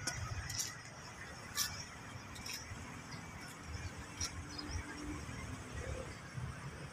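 Faint outdoor background noise with an uneven low rumble and a few short, high-pitched ticks.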